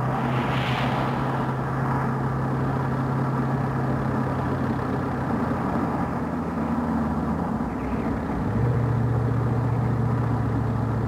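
Cadillac convertible driving along at a steady speed: the engine drones with road noise underneath. The hum fades about six seconds in and comes back a little lower about two seconds later.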